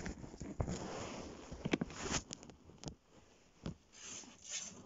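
Rustling handling noise with several sharp clicks and knocks, as a hand handles a small dog and the phone on a tiled floor.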